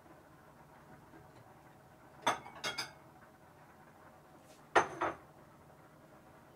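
Dishes and metal utensils clinking: three sharp clinks a little after two seconds in, then two more about two seconds later.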